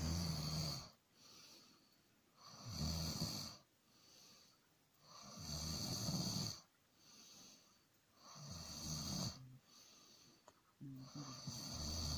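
A sleeping man snoring: five loud snores about every two and a half to three seconds, with softer breaths between them.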